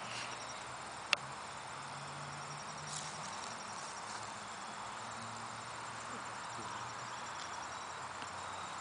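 Crickets chirring steadily over a faint low hum, with one sharp click about a second in.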